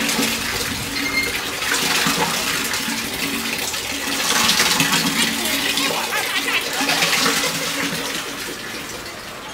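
Water gushing and splashing from a hand-operated well pump as its handle is worked, the flow swelling and easing in uneven surges.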